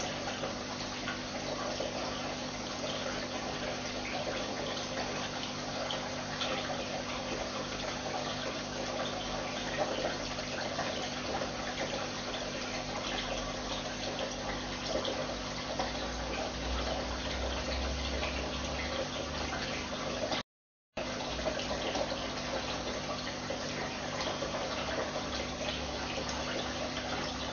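Steady running water in a home aquarium, most likely from the tank's filter, with a constant low hum under it. The sound cuts out completely for about half a second about two-thirds of the way through.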